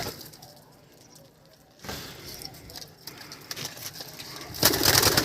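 Pigeons' wings fluttering and rustling as the birds come out. The sound is low at first and becomes a loud rush of wingbeats near the end.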